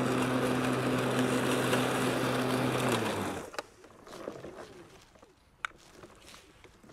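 Powersmart 80-volt cordless twin-blade lawn mower running with its blades spinning, a steady electric hum over a rush of air. About three seconds in the motor shuts off and winds down, leaving a few faint clicks.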